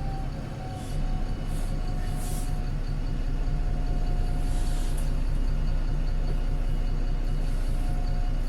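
Pulsar single-deck bus's diesel engine running under power, heard from inside the bus, with a steady high whine over the low rumble that the owner puts down to a squealing turbo. A few short hisses come in the first half.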